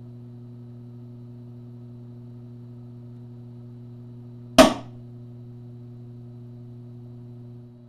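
A single sharp pop about halfway through, over a steady electrical hum, as one of two overvolted components wired in series bursts. The two are an early-1980s electrolytic capacitor and an unidentified part.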